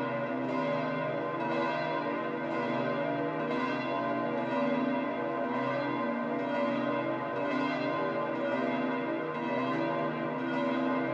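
Church bells pealing, several bells ringing together with a new stroke about once a second.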